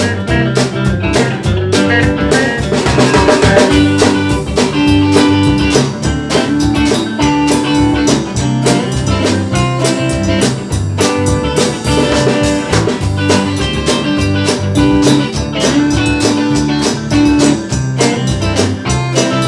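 A live band playing an instrumental break: an electric guitar, a Telecaster-style guitar with a maple neck, plays over bass guitar and a drum kit keeping a steady beat.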